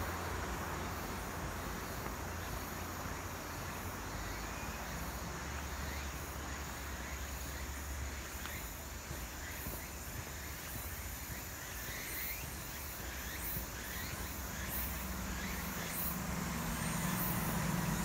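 Outdoor ambience on a walk through woodland in summer: a steady insect hum over a low rumble. A low hum grows louder near the end.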